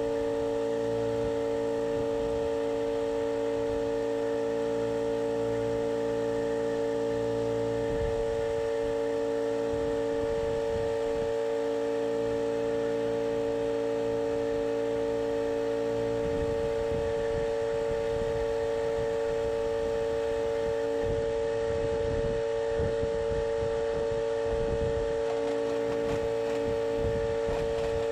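A steady mechanical hum of several fixed tones that holds unchanged throughout, with irregular low thumps and rumbling underneath that grow busier in the second half.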